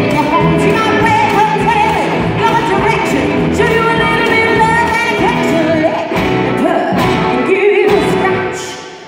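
A live rock band playing, with a woman singing lead over strummed acoustic guitar, electric guitars and drums. The music falls away near the end.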